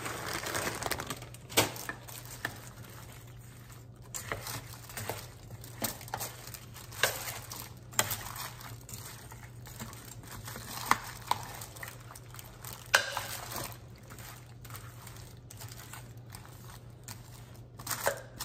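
Frozen mixed vegetables poured from a plastic bag into a slow cooker lined with a plastic liner, rattling and rustling for about the first second and a half. Then a metal spoon stirring the chunky mix, the liner crinkling, with scattered clicks and knocks.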